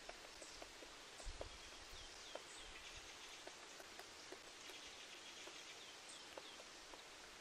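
Faint outdoor ambience: short high bird chirps several times over a soft hiss, with scattered light ticks.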